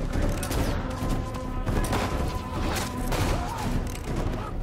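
Film battle soundtrack: dramatic music under the noise of a fight, with several sharp hits or gunshots spread through it.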